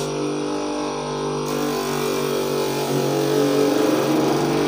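Bench motor with a sanding drum running with a steady hum. About one and a half seconds in, a hiss joins as the cut edge of a rubber slipper sole is pressed against the spinning drum to smooth and finish it.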